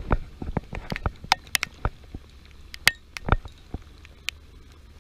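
Raindrops striking the action camera's housing: a scatter of irregular sharp taps and small thuds, about fifteen of them over four seconds, with no steady sound beneath.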